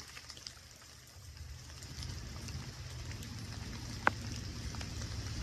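Light rain hissing, with a low rumble that builds after the first second and a single sharp tap about four seconds in.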